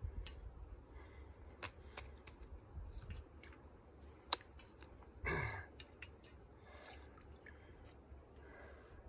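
Metal clinks and clicks of a body-grip trap and its chain being handled at the water's edge, with one sharp click about four seconds in and a brief louder sound about a second later, over a low steady rumble.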